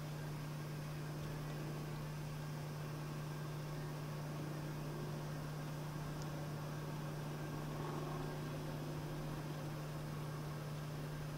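N scale model locomotives running on track: a steady low motor hum with a faint hiss of wheels on rail, swelling a little about two-thirds of the way through.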